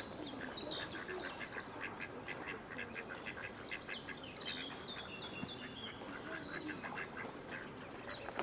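Ducks quacking, mixed with many short, high chirping calls that fall in pitch.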